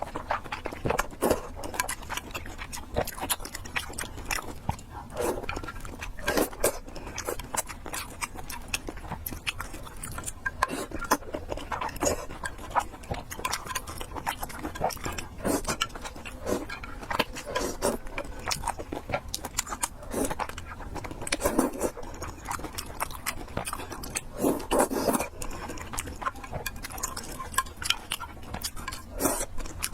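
A person chewing fried noodles and pork close to the microphone, with many short wet mouth clicks throughout.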